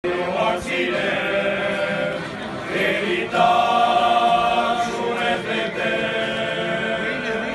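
A group of men singing together in chorus, holding long notes.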